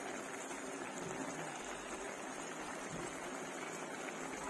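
Pork humba braising liquid simmering in an open wok over a low gas flame: a soft, steady bubbling.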